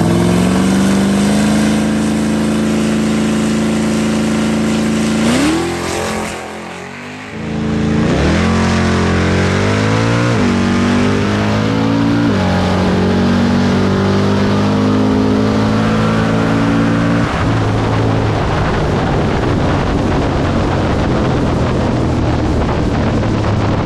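Supercharged V8 of a modified Dodge Challenger SRT Demon, held at steady high revs on the drag-strip starting line, then launching at full throttle. Its pitch climbs and drops sharply three or four times as it shifts up through the gears. It then pulls steadily down the quarter mile, with wind and road noise growing over it near the end.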